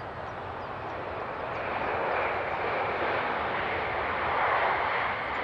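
Jet airliner engine noise, a steady rushing roar that builds slightly and swells again near the end.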